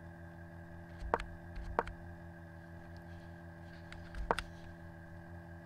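Three sharp clicks, about a second in, just under a second later, and past four seconds, over a steady electrical hum.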